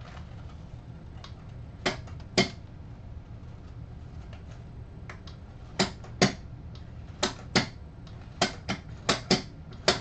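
Doser lever of an Obel Junior coffee grinder pulled by hand, each pull giving a pair of sharp clicks as the doser ratchets round a notch on its makeshift pawl spring cut from a metal ruler. One pull about two seconds in, then four more coming quickly one after another from about six seconds in.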